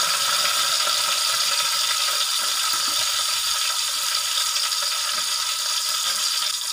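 Sliced garlic sizzling steadily in hot oil in an aluminium pot, a dense crackling hiss as it is sautéed.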